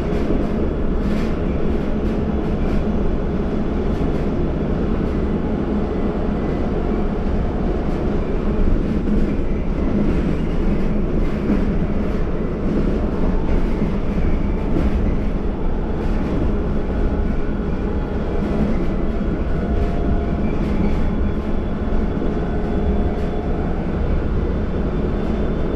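City bus heard from inside the cabin while driving at steady speed: a constant low drone of drivetrain and tyres on the road, with faint steady tones and small rattles from the bus's fittings.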